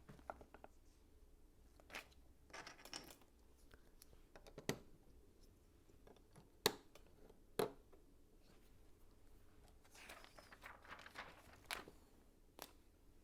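LEGO pieces being handled and pressed together: faint, scattered sharp clicks, the loudest two about seven and eight seconds in, with short rustles of loose pieces around three seconds and again around ten to eleven seconds in.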